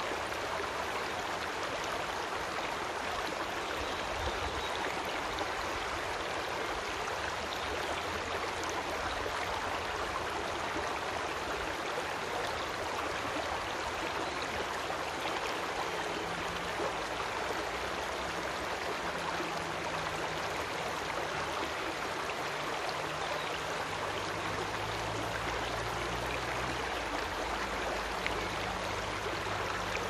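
Creek water flowing and splashing over stones: a steady, even rush.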